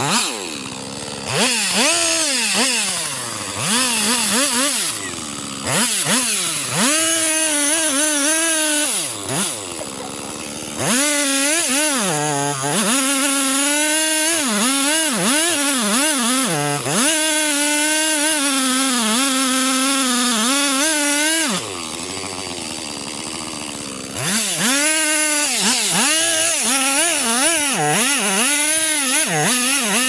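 Gasoline chainsaw cutting into a large tree trunk, its engine pitch rising and dipping as the chain bites under load. Twice, about a third of the way in and again past two-thirds, the engine drops back for a couple of seconds to a lower, steadier run before revving into the cut again.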